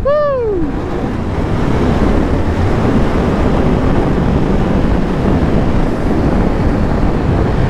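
Wind rushing over the microphone of a motorcycle ridden hard on a loose dirt road, mixed with the 2022 Triumph Tiger 1200 Rally's three-cylinder engine running under load. A loud, steady rush with no clear pitch.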